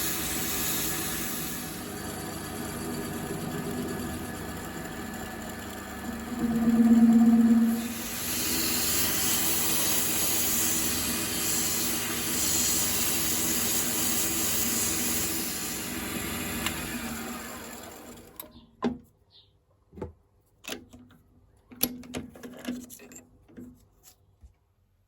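Small bench-top lathe running steadily, with a louder steady tone for about a second partway through, then running down and stopping. A few separate clicks and knocks follow.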